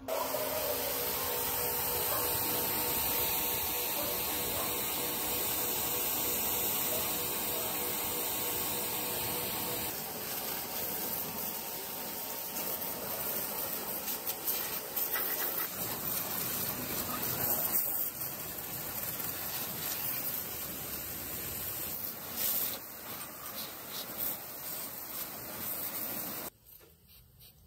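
Electric pressure washer's jet hissing steadily as it sprays water onto a rusty children's bicycle, cutting off sharply near the end.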